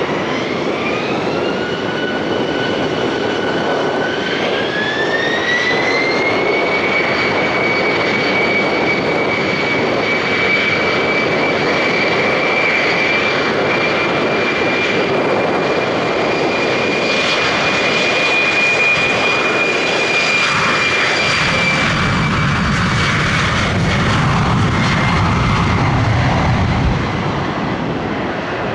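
Embraer E190's twin GE CF34 turbofans spooling up to take-off power: a whine climbing in two steps over the first six seconds, then holding steady through the take-off roll. A deep rumble of engine noise builds over the last several seconds as the jet lifts off.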